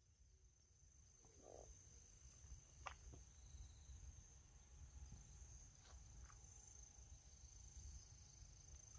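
Faint, steady high-pitched chirring of insects in the surrounding field, over a low rumble.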